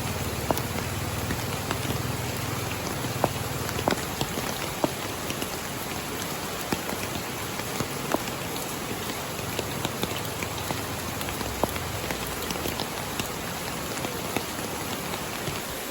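Steady rain falling, with many individual drops ticking sharply on a surface, over a low rumble that fades out about eleven seconds in.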